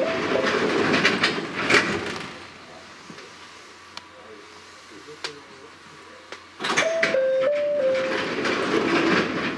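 Chichibu Railway 7500 series train at a station stop: a descending chime sounds twice, about seven seconds apart, each time with a few seconds of loud noise from the sliding passenger doors, with the train standing quietly between.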